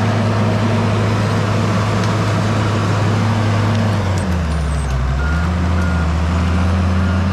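A vehicle engine running steadily; its note drops about four seconds in. In the second half there are a few short, high beeps.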